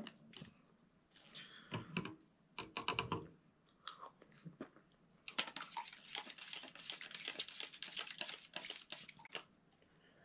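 A spoon stirring a powdered drink mix in a clear plastic cup with little water: a few knocks early on, then a dense run of rapid clicking and scraping from about five seconds in that stops a second before the end.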